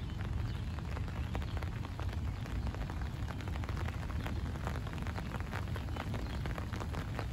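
Rain falling in a thunderstorm: many individual drops ticking close by over a steady low rumble.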